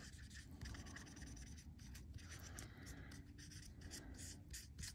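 A Sharpie marker colouring in aluminium metal tape: a faint, irregular run of short scratchy strokes of the felt tip over the foil.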